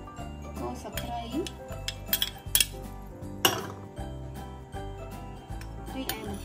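Metal spoon clinking and scraping against ceramic bowls as chopped ingredients are spooned from small dishes into a bowl of sauce: a handful of sharp clinks, the loudest about two and a half and three and a half seconds in. Background music plays underneath.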